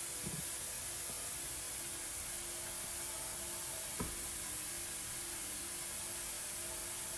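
Steady background hiss with a faint low hum. Under it are soft sounds of hands placing potato-and-pea samosa filling on a strip of filo pastry and folding it, with one light tap about four seconds in.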